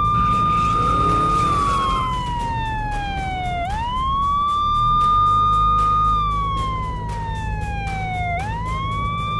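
Police car siren wailing: each cycle rises quickly in pitch, holds a high note, then falls slowly, repeating about every four and a half seconds.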